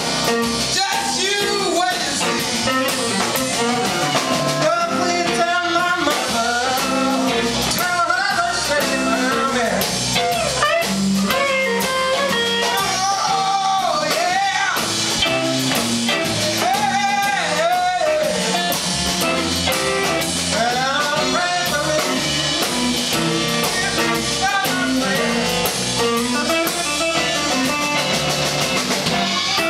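Live blues band playing a slow blues, a woman and a man sharing the vocals over two electric guitars, bass guitar and drums.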